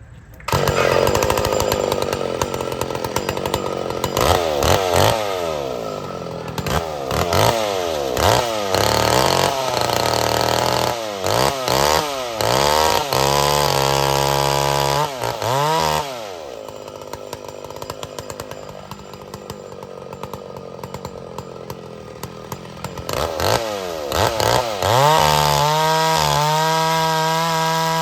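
Old big-timber McCulloch two-stroke chainsaw running, its throttle blipped up and down again and again, then held high for a few seconds. About 16 s in it falls back to idle, then revs up again and holds at high speed near the end.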